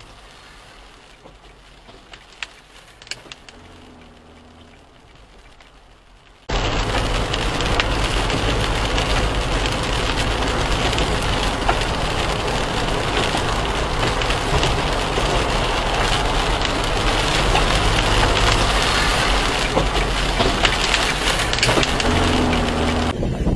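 Rain and wet-road noise heard from inside a moving car. It is quiet at first with a few faint clicks, then about six seconds in turns suddenly into a loud, steady hiss that lasts until near the end.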